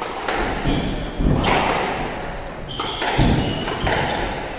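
Squash rally: the ball knocked sharply off rackets and the court walls several times, each knock echoing, with short squeaks of shoes on the wooden court floor in between.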